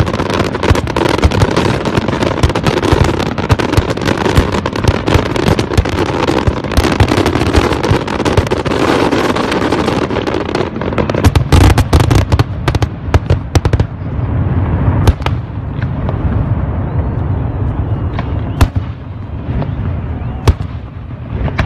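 Fireworks display: a dense, continuous crackle of many shells bursting for about the first ten seconds, thinning after that to separate booms over a low rumble, with a few single sharp bangs near the end.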